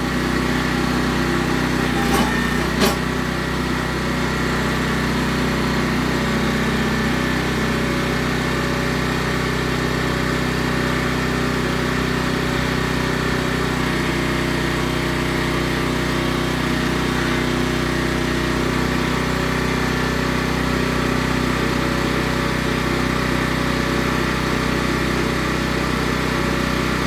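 Small gasoline engine of a towable trencher/backhoe running steadily, with two sharp clicks about two to three seconds in.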